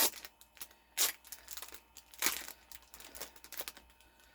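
Plastic packaging crinkling and tearing as a packet of stickers is handled and opened: three sharper rips, near the start, about a second in and a little after two seconds, with lighter rustling between.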